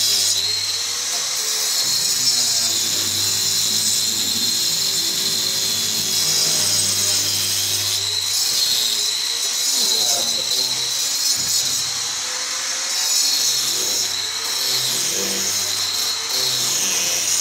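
Handheld disc cutter grinding a groove into a masonry block wall for electrical conduit, a steady high-pitched whine. Music plays underneath.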